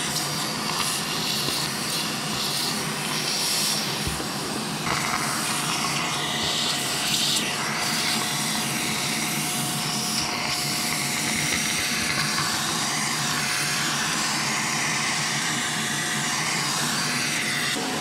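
Shop vacuum running with a narrow homemade nozzle made from a quarter-inch hose, sucking up sawdust. A steady rush of air with a constant whine, the hiss shifting as the nozzle moves over the dust.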